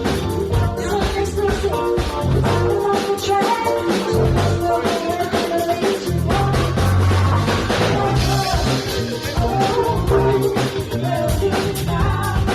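A funk band playing live: drum kit, bass guitar and electric guitars in a steady, driving groove.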